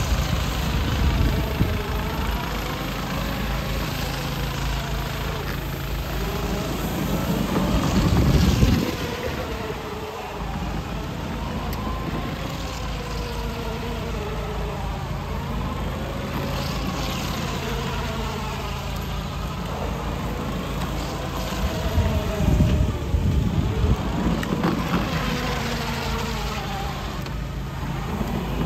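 Kids' 24V battery-powered electric drift go-kart driving: its electric motors whine, the pitch rising and falling as it speeds up and slows, over a steady low hum, louder about eight seconds in and again near the end.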